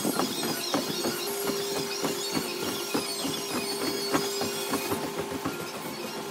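Workout dance music played back fast-forward, sped up into a rapid, irregular clatter of clicks over one steady held tone.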